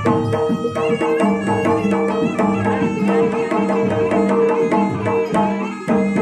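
Live traditional Javanese dance-accompaniment music: fast, dense hand-drum strokes over steady held tones from pitched instruments.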